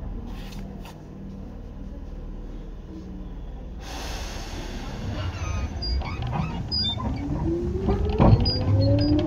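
Tokyu 8500 series train pulling away from a station. A burst of air hiss comes about four seconds in. Then the Hitachi and Toyo traction motors start a whine that rises steadily in pitch as the train accelerates, with a sharp knock near the end.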